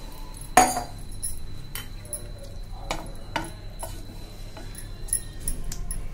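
Wooden spatula stirring cut cluster beans and tomatoes in a frying pan, knocking and scraping against the pan in a string of irregular clicks, the loudest a sharp knock about half a second in.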